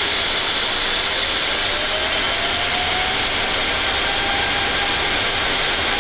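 Boeing 747-8 freighter's four GEnx jet engines spooling up to takeoff thrust at the start of the takeoff roll, heard inside the flight deck as a steady, loud rush of noise. A faint whine rises in pitch during the first few seconds.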